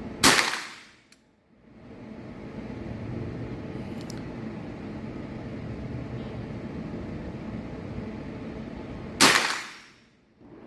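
Two shots from a Rossi 7022 .22LR rifle with an 18-inch barrel, about nine seconds apart, over steady background noise.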